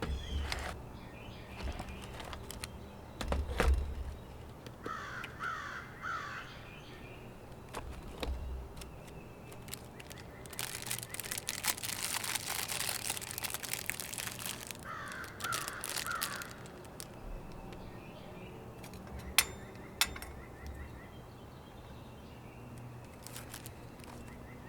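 A crow cawing in two short bouts of a few caws, about five seconds in and again about fifteen seconds in, over a steady low hum. Between the bouts come a few seconds of rustling hiss and some low thumps. Two sharp clicks near the end are the loudest sounds.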